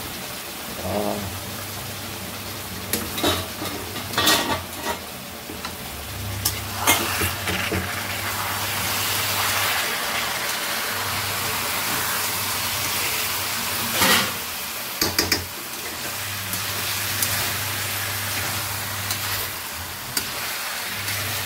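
Chicken pieces sizzling in oil and green chilli paste in a kadai while a ladle stirs them, with a steady frying hiss. The ladle knocks sharply against the pan several times, the loudest about 14 seconds in.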